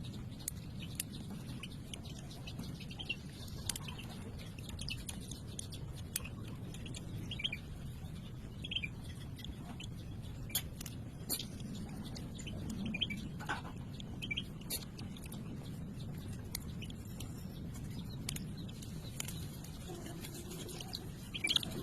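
Short, scattered bird chirps and sharp clicks over a steady low background rumble.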